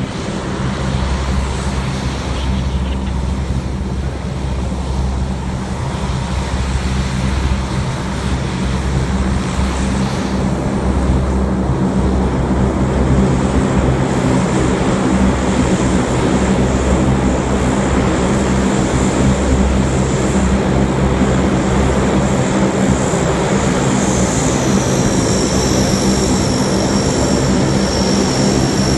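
C-130 Hercules's four turboprop engines running as the aircraft taxis toward the listener: a steady, deep propeller drone that grows louder, with a high turbine whine rising in and holding near the end.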